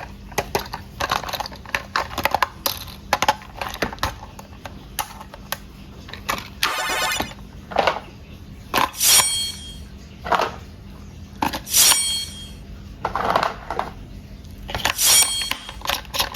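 Hard plastic toys being handled: irregular clicks and clinks, a quick rattle about seven seconds in, and a few short high-pitched squeaks.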